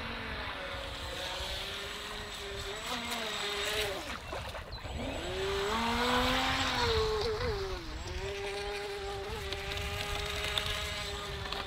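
Atomik Barbwire 2 17-inch brushless RC speedboat on a 3S LiPo running across the water: a high electric motor whine that dips and rises in pitch several times. It peaks highest and loudest about six seconds in, with spray hissing, then holds steady.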